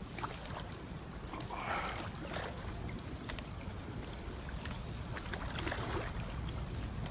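Kayak paddle strokes in still floodwater: a few soft splashes a few seconds apart, with scattered light drips and clicks.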